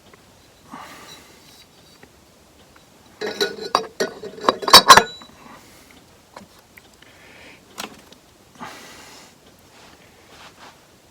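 Metal transmission parts clinking and knocking as they are handled and set on the workbench, with a quick cluster of sharp clinks about three to five seconds in and a few fainter clicks and rustles around it.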